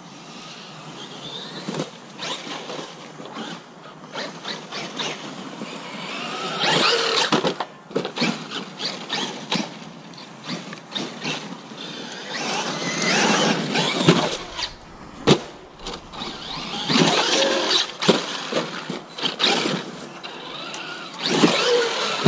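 Traxxas Maxx RC monster truck's electric motor whining up and down through repeated bursts of acceleration, with sharp knocks as the truck bounces over the dirt. The loudest surges come about a third of the way in, past the middle, and near the end.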